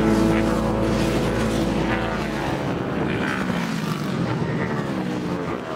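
Racing motorcycle engines at high revs passing along a track, their pitch sliding up and down, gradually fading.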